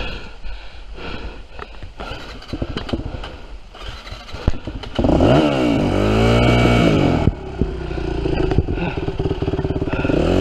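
Yamaha WR250F dirt bike's four-stroke single-cylinder engine: after a few seconds of clattering knocks, it is revved hard about five seconds in, its pitch rising then falling over about two seconds, then keeps running at a lower steady pitch.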